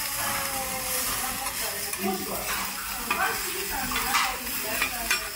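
Batter sizzling on a hot teppan griddle, with the scraping and tapping of metal spatulas stirring and turning it.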